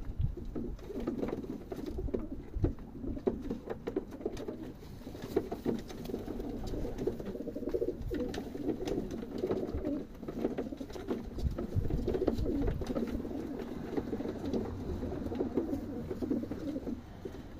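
Racing pigeons cooing continuously, their low warbling calls overlapping, with scattered light clicks.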